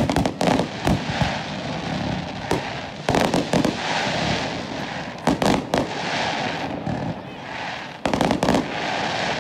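Aerial fireworks bursting overhead: clusters of sharp bangs every two to three seconds, with a steady crackling hiss between the volleys.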